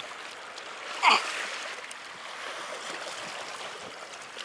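Sea water lapping and washing against shoreline rocks as a steady wash. About a second in comes one short, loud cry that falls in pitch.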